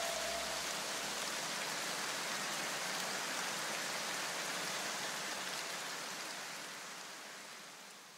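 Steady rain-like hiss from the film's soundtrack after the music has stopped, fading out to silence near the end. A low rumble dies away in the first second and a half.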